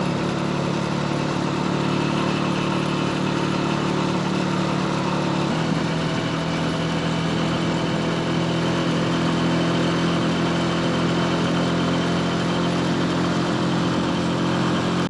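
Honda 125 single-cylinder motorcycle engine running steadily under way. Its note steps slightly lower about five and a half seconds in.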